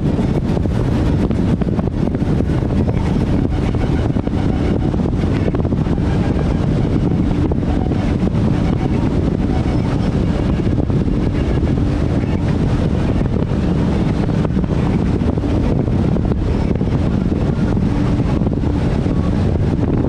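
28-foot Nordic Heat V-hull powerboat running at high cruising speed, around 4800–4900 RPM: a steady, even mix of deep engine drone and hull-on-water noise, heavily buffeted by wind on the microphone.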